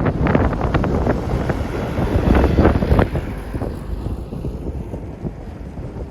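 Snowstorm wind buffeting the microphone in a strong, uneven low rumble, with scattered short clicks over it, strongest in the first three seconds.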